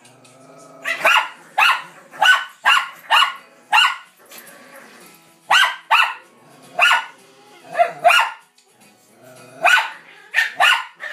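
Bichon Frise and Lowchen dogs barking in play. Short, sharp barks come in quick runs of several, with brief lulls about four seconds in and again after eight seconds.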